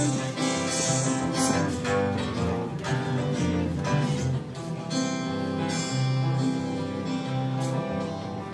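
Instrumental music: plucked guitar over held bass notes, with no singing.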